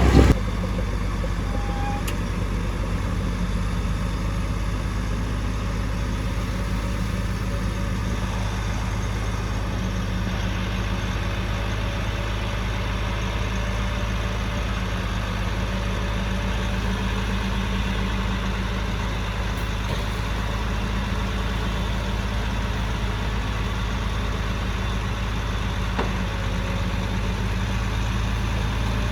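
Heavy construction-machine diesel engine running steadily at an even speed, a constant low hum with no revving.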